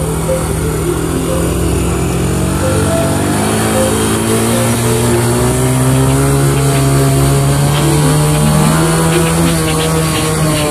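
Honda ATV engine running under way, its pitch climbing steadily as it accelerates through the middle and easing off near the end.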